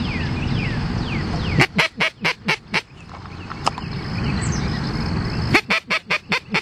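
Teal duck call blown in two rapid series of about six quacks each, the first about a second and a half in and the second near the end, imitating the quack of a hen blue-winged teal.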